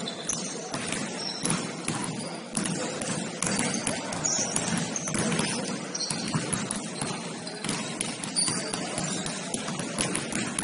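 Basketball game in play: a basketball bouncing and players' footsteps thudding on the court, many short knocks over a steady background of game noise.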